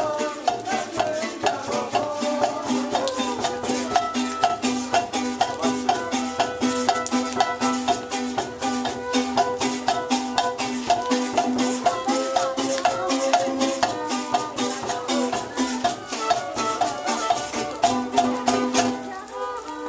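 Traditional folk music playing: a sustained melody over a repeating low note, with sharp rattle-like percussion strokes keeping a quick, steady beat.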